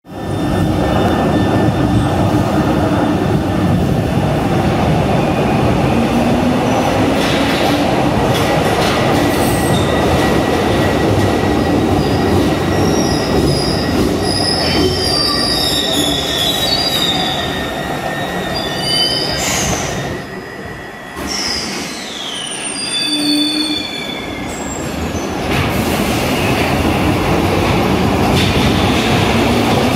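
Glasgow Subway train running along an underground station platform: a loud, steady rumble of wheels on rail with high wheel squeal. It eases for a few seconds about two-thirds of the way through, with one squeal falling in pitch, then grows loud again as the train pulls out into the tunnel.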